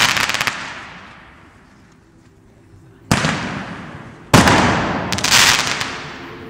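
Consumer single-shot aerial bomb (sky shot) fireworks. A crackling tail from an earlier burst dies away. About three seconds in, a shell goes up from its tube with a sharp report, then bursts a little over a second later with a loud bang, followed by a crackle that fades out.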